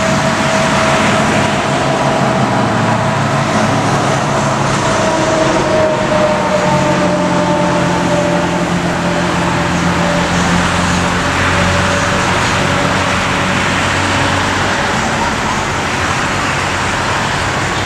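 Road traffic going by: a steady rush of tyre and engine noise, with a tone that slowly falls in pitch through the first half.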